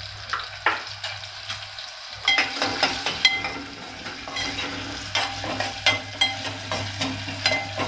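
Oil tempering of cumin, green chillies, curry leaves, asafoetida and turmeric sizzling in a steel pot while a spoon stirs it. From about two seconds in, the spoon clicks against the side of the pot again and again.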